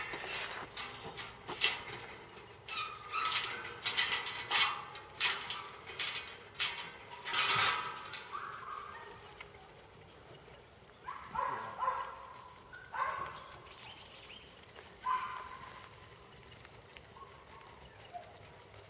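A small mob of sheep moving in a steel-panelled yard: a quick run of knocks and scuffles, then several short sheep bleats, some falling in pitch.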